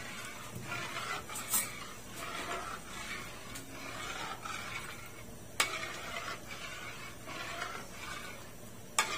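Metal ladle scraping and stirring along the bottom of an aluminium wok through a thickening maja blanca batter of coconut milk and cornstarch, in repeated strokes about twice a second. The stirring is kept up nonstop so the mixture does not stick as it heats. Two sharp clinks, about halfway through and near the end.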